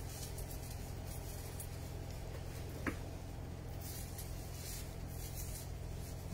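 Tomato plant leaves and stems rustling and crackling as tomatoes are picked by hand, with a brief click about three seconds in, over a steady low hum.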